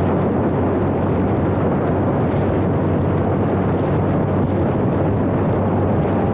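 Motorcycle at steady cruising speed heard from the rider's helmet: a constant rush of wind over the microphone with a low, even engine hum underneath.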